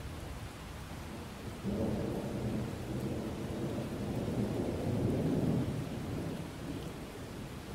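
Steady rain with a roll of thunder that starts suddenly about two seconds in, rumbles low for about four seconds, and fades away near the end.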